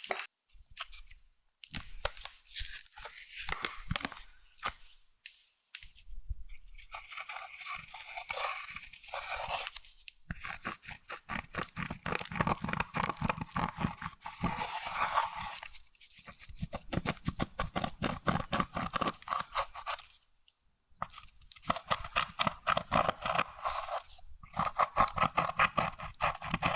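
Clear slime being mixed and stretched, making dense sticky crackling and popping. It comes in bouts of a few seconds, broken by short pauses.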